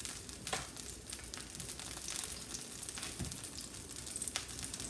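Cubes of cornstarch-coated tofu sizzling in hot sesame oil in a nonstick frying pan, with a few sharp pops. The sizzle is the sign that the oil is hot enough to fry.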